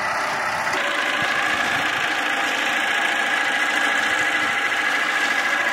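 Vintage tractor engine running steadily under load as it tows a working reaper-binder through standing wheat.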